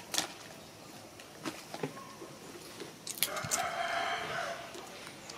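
A rooster crowing once, a little over three seconds in, the crow lasting over a second. It is preceded by a few sharp clicks or knocks.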